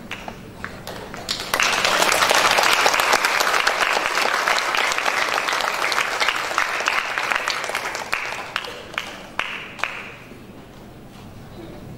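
Audience applauding: a burst of clapping starts about one and a half seconds in, thins out after about eight seconds and ends with a few last claps near ten seconds.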